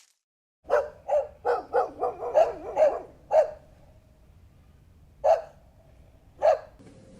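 A dog barking: a quick run of about eight barks in under three seconds, then two more single barks a second or so apart.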